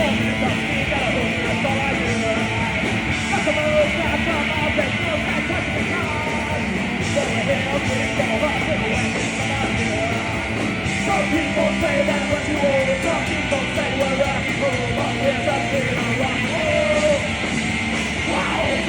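Live rock band playing a song at full volume, with shouted vocals over the band.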